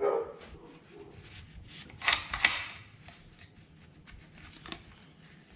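Hands handling and wiping the parts of a disassembled rifle during cleaning: scattered light clicks and rubbing, with a louder burst of rubbing about two seconds in.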